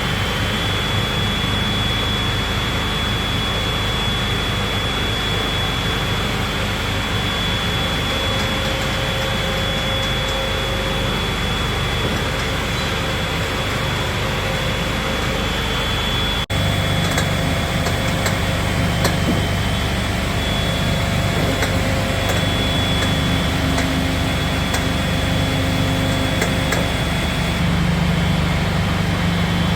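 Müller VGU frame saw running steadily, a continuous mechanical din with a thin high whine over it. An abrupt break about halfway through gives way to a stronger, deeper hum.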